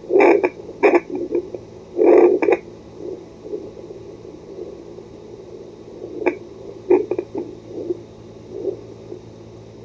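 Home fetal doppler's loudspeaker as the probe moves over a pregnant belly: irregular whooshing and scraping bursts, loudest in the first two and a half seconds, over a steady low electrical hum.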